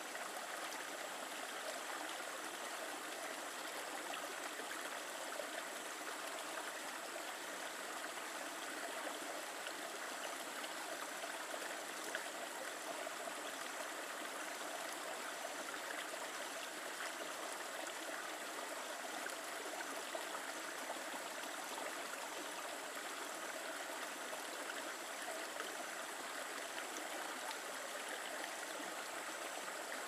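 Shallow creek flowing steadily, with water splashing over rocks in small cascades into a pool.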